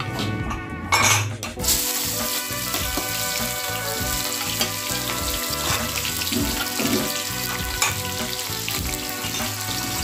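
Sliced onions and green chillies sizzling in hot oil in a kadhai on a gas burner. The hiss starts suddenly about two seconds in, after a few short knocks of the pan, and then runs on steadily.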